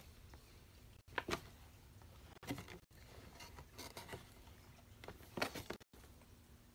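Cats scuffling with toys and a cardboard toy box on carpet: four short, quiet rustling and scraping bursts.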